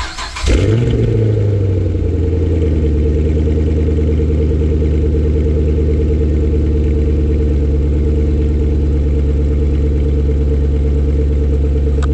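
Chevrolet Camaro engine started and heard at its quad exhaust tips: it fires about half a second in, flares up briefly, then settles into a loud, steady idle.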